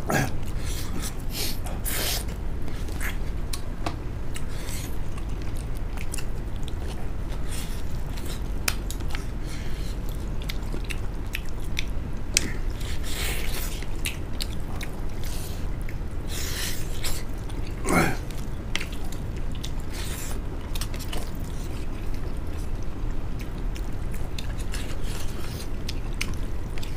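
Close-up eating sounds: people chewing and biting duck meat and sticky rice, eaten by hand, with many small wet smacks and clicks of mouths and fingers. About two-thirds of the way through there is a brief voice sound that falls in pitch, like an appreciative 'mm'.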